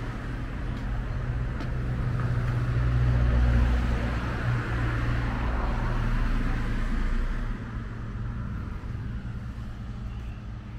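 A motor vehicle passing on the street, engine hum and tyre noise growing louder about three to four seconds in, then fading away after about seven seconds.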